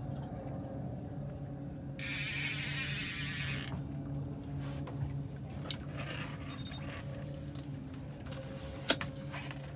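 Outboard motor running steadily at trolling speed while a fishing reel's drag buzzes for about a second and a half as a hooked fish pulls line, then a few sharp clicks from the reel and rod, the loudest near the end.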